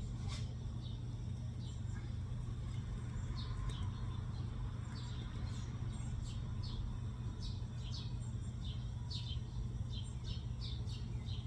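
A bird chirping: short, high, quickly falling chirps, repeated irregularly, over a steady low hum.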